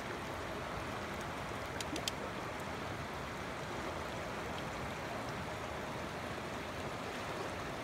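Shallow creek water running steadily over rocks, with two faint clicks about two seconds in.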